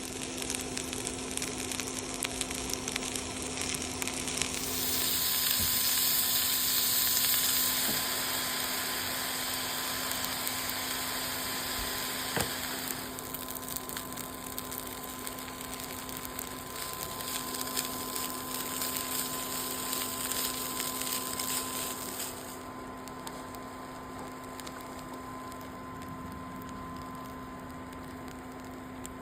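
Food sizzling in a pan over a camp stove, a steady hiss that changes abruptly in loudness and tone three times, about 4, 13 and 22 seconds in.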